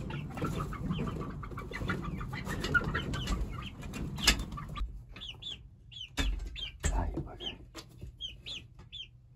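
Young chickens peeping and clucking with short high calls. In the first half a long-handled garden tool scrapes and rustles through the coop's bedding, and a few sharp knocks sound later on.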